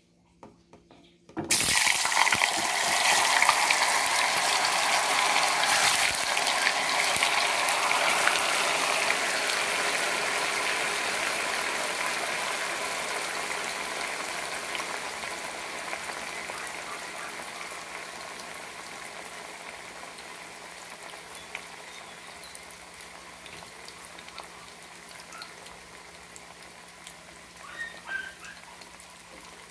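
Tofu cubes dropped into hot oil in a pot, setting off a loud sizzle about a second and a half in that slowly dies down as the tofu fries, with a few small pops near the end.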